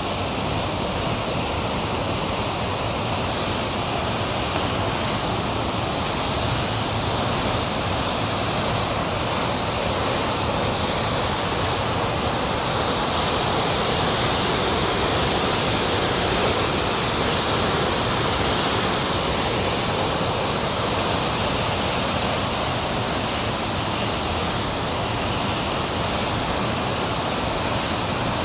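Floodwater pouring through a reservoir dam's opened spillway shutters, churning in a steady, loud rush of water.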